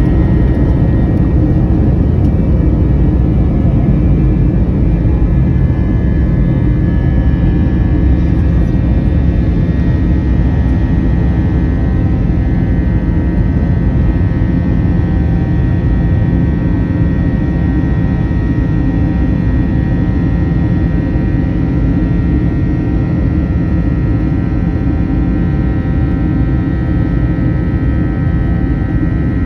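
Airbus A321's jet engines at takeoff thrust heard from inside the cabin: a loud, steady roar with a fan whine over it, through the end of the takeoff roll and the initial climb.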